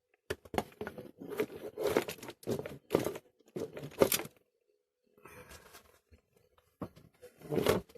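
Irregular rustling and crackling handling noise in a run of short bursts, busiest through the first four seconds, quieter around the middle and with one louder burst near the end.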